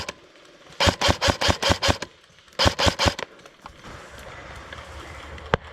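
Airsoft gun firing strings of quick shots, about six a second: seven shots, a short pause, then four more, followed by one single click near the end.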